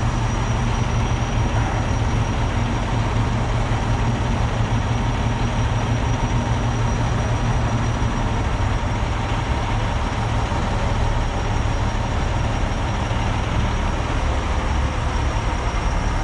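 Heavy Peterbilt rotator tow truck's diesel engine running steadily under raised idle, powering the boom hydraulics during a lift.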